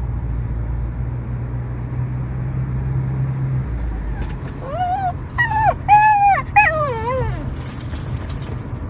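Shiba Inu whining, a short run of about four high, wavering cries that rise and fall, partway through, over a steady low hum. A male dog crying for a female in the mating season.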